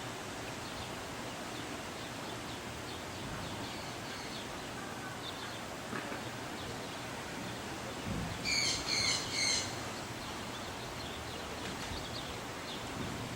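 Steady outdoor background noise with scattered faint bird chirps; about eight and a half seconds in, a bird gives three loud harsh call notes in quick succession, just after a faint low thump.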